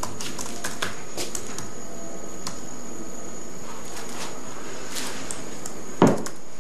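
Laptop keyboard being typed on: scattered, irregular soft key clicks over a steady faint hiss, with one louder dull thud about six seconds in.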